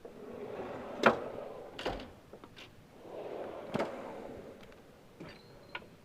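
Metal drawers of a Snap-on tool box rolling along their slides and shutting with a sharp clunk, twice, followed by a few light clicks near the end.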